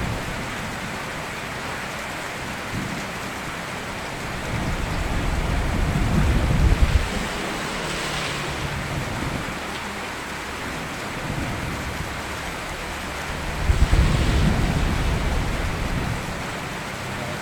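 Steady rain falling, with two low rolls of thunder that swell up and die away, the first peaking about seven seconds in and the second near the end.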